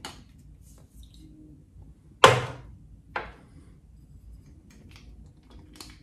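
A sharp knock of glass on a hard surface about two seconds in, then a softer one about a second later, with a few faint ticks near the end: small glass bottles and glassware being handled on the worktable while fragrance oil is measured out.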